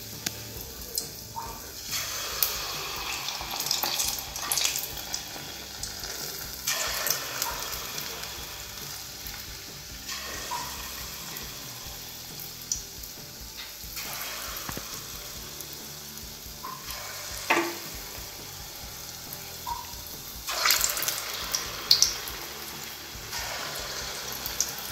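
Pieces of garige dough, a wheat-flour and jaggery batter, are dropped one at a time into hot oil. Each drop sets off a surge of sizzling that fades back into a steady frying hiss, about six times, with a few sharp pops and spits.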